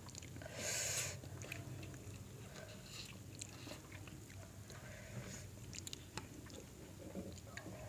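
Close-up eating sounds of a seafood boil eaten by hand: chewing, mouth smacks and small clicks of fingers picking through crab and shellfish. A short, louder rushing burst comes about half a second in.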